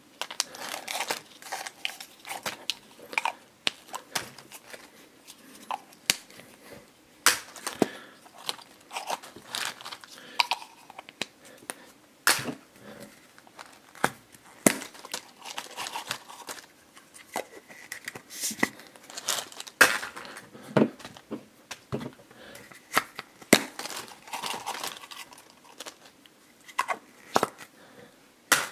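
Plastic toy test tubes being opened one after another: irregular sharp clicks and knocks as the blue plastic caps come off and the tubes are handled, with cellophane-wrapped figures crinkling as they are shaken out onto a pile of wrapped packs.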